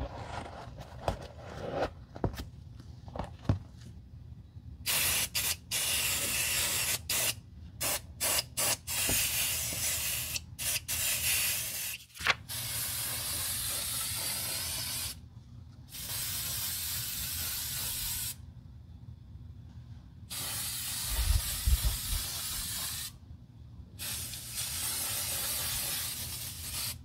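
Aerosol waterproofing spray hissing onto white leather sneakers in a series of bursts of two to three seconds each, with a few quick puffs among them. Light handling clicks and taps come before the spraying starts, and there is one low thump partway through.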